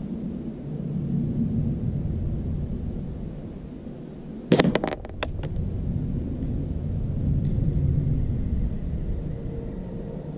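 A .177 air rifle pellet striking a small plastic cap set on a stone: one sharp crack about four and a half seconds in, followed within a second by a few quick clicks as the cap is knocked off and clatters away, over a low rumble of wind.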